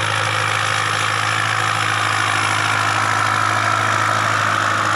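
Ford 7810 tractor's diesel engine running steadily at an even pitch while the tractor pushes a load of soil with its front blade.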